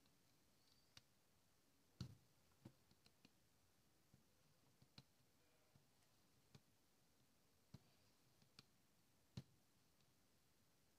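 Near silence broken by faint, irregular clicks and taps of an embroidery needle piercing and catching on taut fabric while silk thread is stitched through it by hand.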